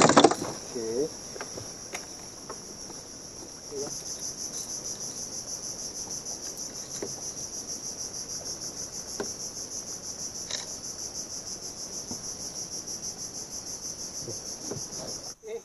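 High-pitched insect chorus: a steady shrill buzz pulsing about five times a second, louder from about four seconds in, that cuts off suddenly near the end. A few faint knocks sound near the start.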